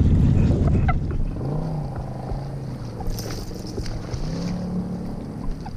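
A hooked fish splashing at the surface about three seconds in, over wind rumble on the microphone. A low whir rises and falls in pitch twice.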